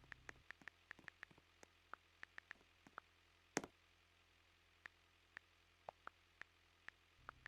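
Near silence: a faint low hum with many small, irregular clicks. One click about three and a half seconds in is louder than the rest. The hum drops away about half a second in and comes back near the end.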